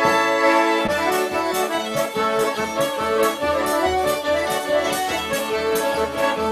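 Traditional Polish folk tune played live on piano accordion and fiddle, with a steady dance beat.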